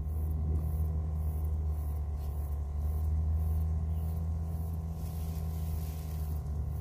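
A steady low mechanical hum made of several steady tones, with a faint high pulsing about twice a second over it.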